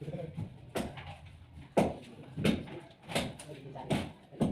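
Repeated sharp knocks, about one every three-quarters of a second, with a faint low hum underneath.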